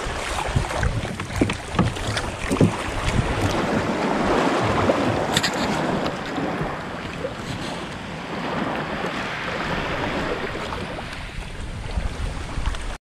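A wooden paddle stroking through the water beside a small outrigger boat, with sloshing and splashing and wind on the microphone. There are a few sharp knocks in the first few seconds and one more a little later, and the sound cuts off suddenly just before the end.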